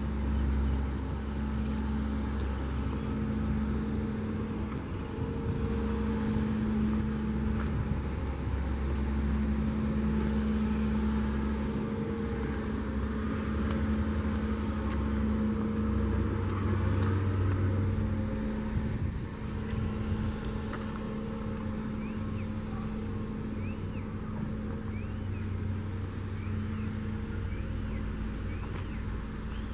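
Diesel engine of a track maintenance-of-way machine idling steadily, a low, even hum that wavers slightly. A few faint short chirps come in during the second half.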